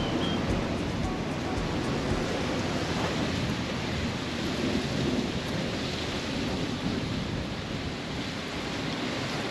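Wind buffeting the microphone: a steady rush with an irregular low rumble.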